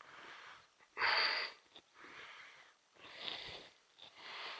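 A person breathing hard close to the microphone: five noisy breaths, about one a second, the loudest about a second in.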